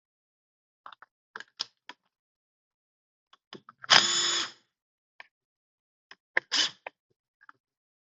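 A handheld power tool, drill or driver type, run in a short burst of under a second about four seconds in, with a shorter burst near seven seconds, amid light clinks of metal tools and parts while fittings are taken off a turbocharger.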